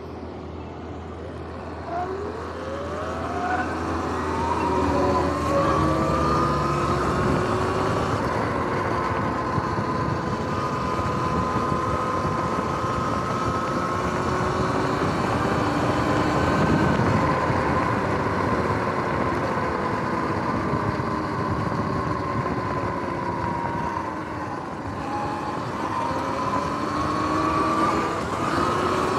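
Electric dirt bike motor whine rising in pitch as the bike pulls away from a stop about two seconds in, then holding a steady whine at cruising speed, with a dip and another rise near the end. Wind and road noise grow with speed.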